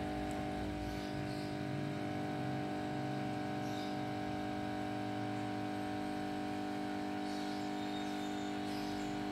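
Steady machine hum made of several fixed tones, unchanging throughout.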